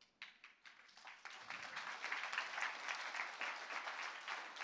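Audience applauding: a few scattered claps that swell within about a second and a half into steady applause.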